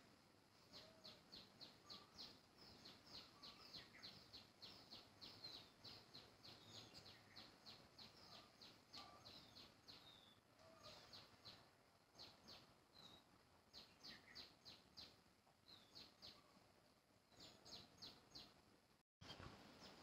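Faint run of sharp, high chirps, repeated about three times a second with short pauses, from a small animal calling.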